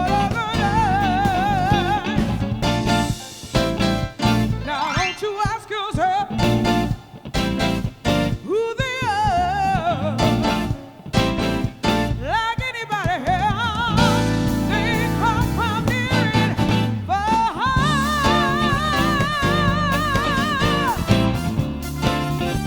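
Live soul band playing, with drums and bass under a lead line of long, wavering held notes; the longest note comes near the end.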